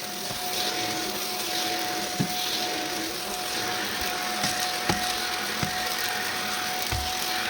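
Shark vacuum cleaner running with a steady whine, with scattered sharp clicks and crackles as gritty debris is sucked up.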